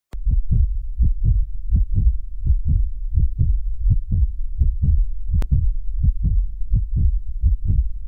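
Heartbeat sound effect: deep double thumps in a steady lub-dub rhythm, about 80 beats a minute. A sharp click comes right at the start and another about halfway through.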